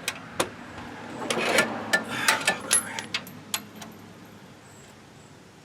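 Scattered metallic clicks and clinks of a wrench working on a rear brake caliper bolt, with a scraping rustle about a second and a half in, then fading toward the end.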